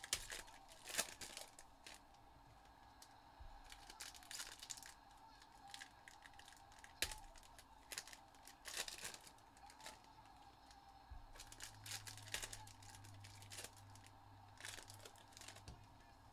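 Foil wrappers of 2022 Panini Prizm football hobby packs being torn open and crinkled by hand, in short irregular bursts of ripping and rustling.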